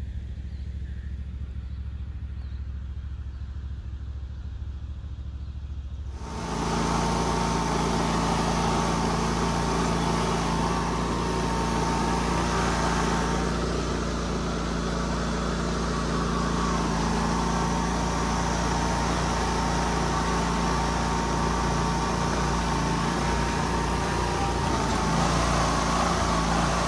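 An engine running steadily, getting clearly louder and fuller from about six seconds in.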